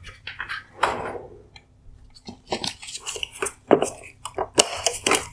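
Irregular clicks, knocks and scraping of hard plastic parts inside a Porsche Cayenne LED headlight housing as a hand reaches in and twists the AFS motor to unlock it from its mount.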